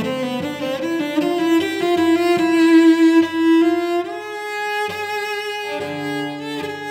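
Solo cello played with the bow: a quick run of short notes, then longer held notes.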